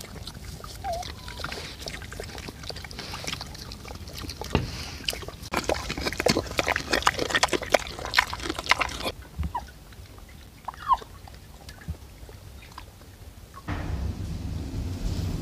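Pigs rooting in wet mud: a dense run of wet squelching and chomping clicks, easing off after about nine seconds into a quieter stretch with a few faint chirps. Near the end, louder kitchen handling at a wooden cutting board takes over.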